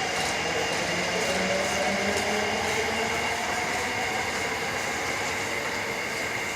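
Osaka Metro Tanimachi Line subway train running, with a motor whine rising slowly in pitch over the first few seconds as it picks up speed, over steady wheel and rail noise.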